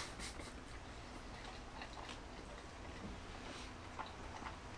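Faint chewing and a few small scattered clicks of people eating a soft Korean seafood pancake (chijimi) by hand.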